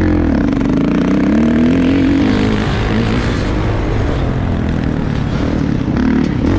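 Motocross bike engine running under changing throttle: its pitch climbs over the first two seconds, drops back, holds lower, then rises again near the end.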